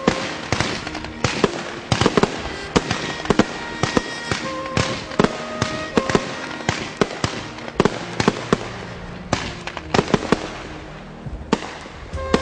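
Multi-shot fireworks cake firing a rapid, uneven series of sharp shots and bursts with crackling in between; the shots thin out near the end. Background music runs underneath.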